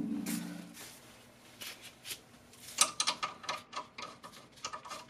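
A brief metallic ring and hum in the first second. From about three seconds in comes a fast, uneven run of ratchet wrench clicks as the strut fasteners are snugged, faint throughout.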